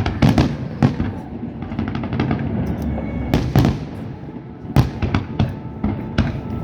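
Fireworks bursting, a string of sharp bangs, about eight in all, irregularly spaced, with the loudest clustered a little past the middle, each followed by a brief rumbling echo.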